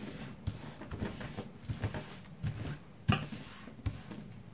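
Hands pressing and smoothing a freshly glued paper image flat on a desk: soft paper rustling and sliding, with a few light knocks, the clearest about three seconds in.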